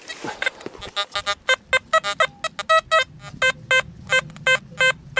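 XP Deus metal detector giving a fast, even run of short, same-pitched beeps, about three a second, as its coil sweeps over a buried metal target.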